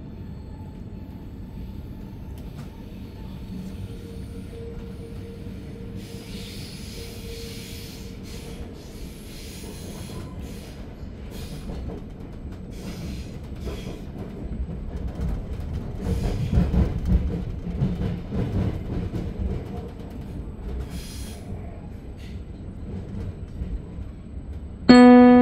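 Inside a double-deck S-Bahn train (Re 450 DPZ) running on the line: a steady rumble of wheels on rails with scattered rattles and hissing, the rumble louder for a few seconds past the middle. Near the end an electronic chime sounds, the gong that comes before the next-station announcement.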